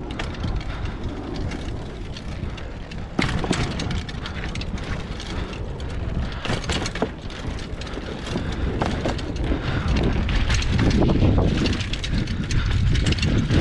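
Mountain bike ridden over wooden ladder bridges and a rock garden: tyres rolling and clattering across wooden slats and stones, with the bike rattling and a steady wind rumble on the microphone. A sharp knock comes about three seconds in, and the clatter grows louder near the end.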